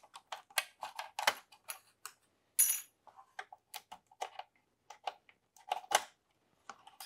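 Flat-blade screwdriver prying metal spring clips off a circuit board's RF shield: a string of irregular small metallic clicks and taps, with sharper clicks about two and a half seconds in and again near six seconds, as a clip pops loose.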